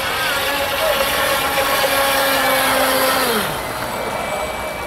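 Radio-controlled model hydrofoil boat's motor running steadily at high speed over a hiss of spray. Its pitch falls away about three and a half seconds in as the boat slows.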